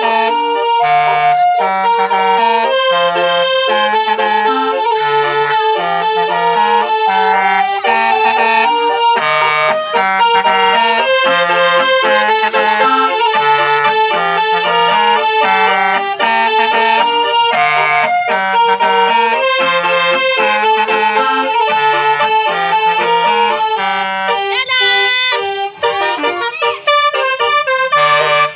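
Instrumental music with a reedy, accordion-like melody over a steadily stepping bass line, keeping an even beat throughout.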